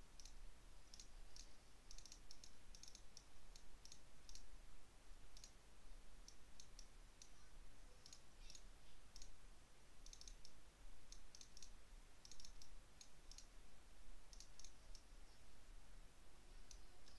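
Computer mouse clicking: faint, irregular single and paired clicks over a steady low hum.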